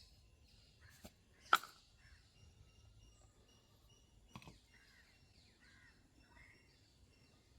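Faint bird chirps in the background, with three sharp clicks of metal tools being handled, the loudest about a second and a half in.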